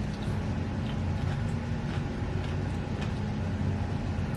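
Steady low background hum with a few faint crunches from chewing a dill pickle.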